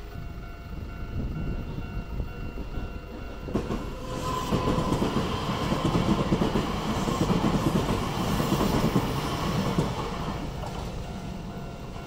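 Nankai main line local electric train passing over a level crossing, its wheels clattering over the rail joints. It builds from about a second in, is loudest from about four to ten seconds, then fades. The crossing's warning bell rings beneath it, heard plainly before the train arrives and again as it leaves.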